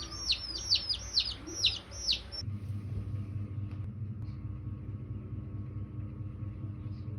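A bird sings a quick run of about seven sharp, falling chirps for roughly two seconds. The song stops abruptly and a steady low mechanical rumble takes over.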